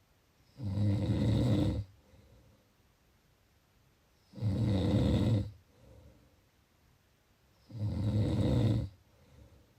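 A person snoring: three loud snores, each about a second long, coming roughly every three and a half seconds, with faint breathing between them.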